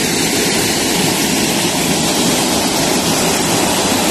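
Mountain stream rushing down a smooth rock chute in small cascades: a steady, even rush of water.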